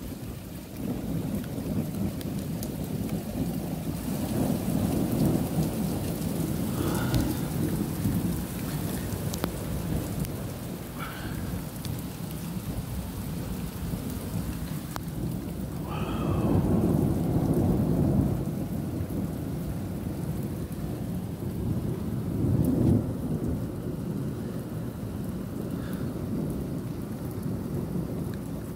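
Thunder rumbling in long rolls over steady rain, the rumble swelling several times.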